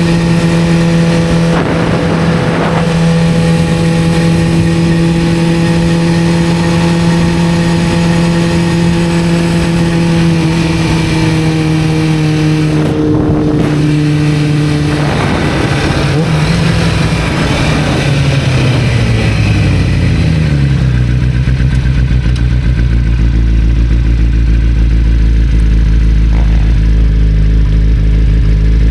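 1991 Kawasaki ZZR-400's inline-four engine running under way at a steady pitch, then dropping in pitch over several seconds about halfway through as the bike slows, and settling to a lower steady note.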